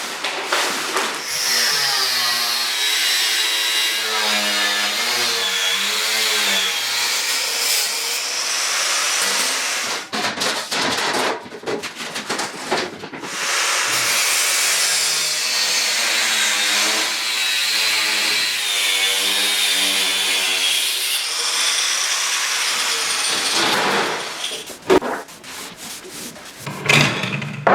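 Power tool cutting steel in two long passes of about eight and seven seconds, its high whine sagging in pitch under load, with short knocks and handling in the pause between and near the end.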